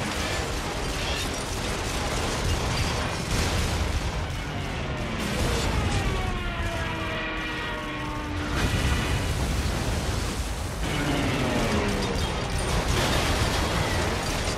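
Film battle sound effects: a dense, continuous din of anti-aircraft gunfire and explosions. Twice a pitch falls through it, as diving aircraft pass. Music runs under it.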